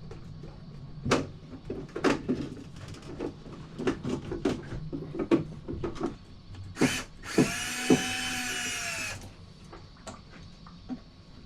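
Knocks and clicks of a tool working at a rusted screw, then a power drill-driver spinning for about two seconds about seven seconds in.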